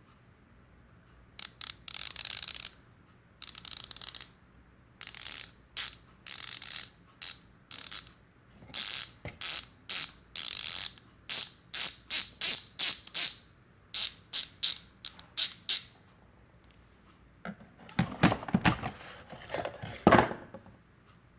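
ARC MT-009 bicycle rear hub's freehub ratchet buzzing in many short bursts, then a longer, louder stretch of clicking near the end.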